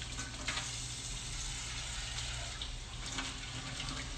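Kitchen tap running into the sink, the water splashing over hands being washed under it.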